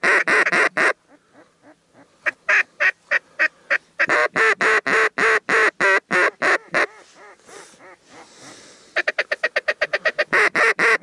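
Duck quacking in rapid runs of about five quacks a second, broken by short pauses. The last run, near the end, comes faster.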